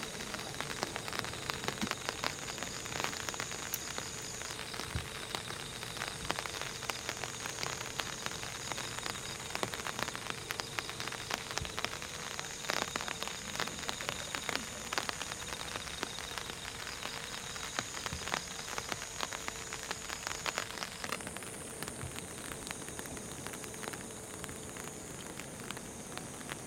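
Rain falling on an umbrella: a dense, steady spread of small drop hits on the canopy.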